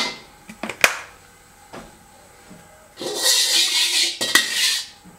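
Metal ladle clinking against a wok, twice near the start, then scraping around the bottom of the wok for about two seconds as it spreads cooking oil, with another clink near the end.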